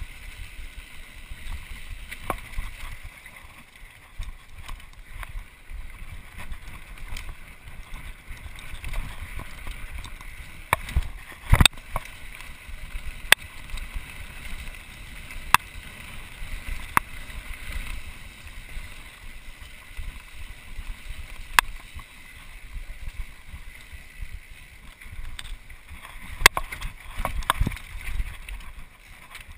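Mountain bike riding fast down a rough dirt singletrack: steady tyre rumble and wind on the microphone, broken by sharp clacks and rattles of the bike over bumps, the loudest a little under halfway through.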